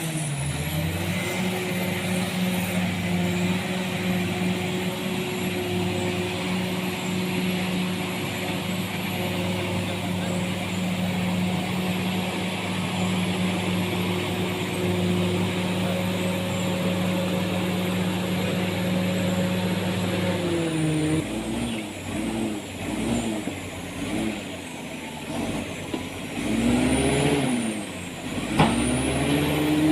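An engine running at a steady speed. About two-thirds of the way in its pitch starts rising and falling again and again, as if it is being revved or driven unevenly.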